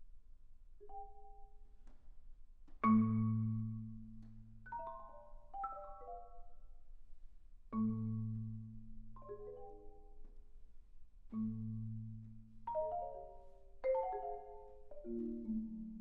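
Solo marimba played with mallets in a slow, sparse passage: three deep bass notes a few seconds apart, each left to ring, with short flurries of higher notes between them and a falling run of notes near the end.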